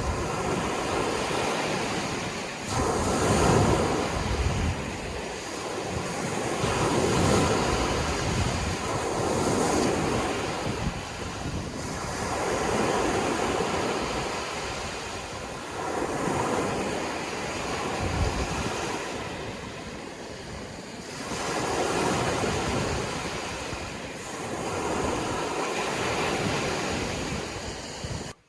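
Sea waves breaking and washing up the shore, the surf swelling and falling back every few seconds. It cuts off suddenly near the end.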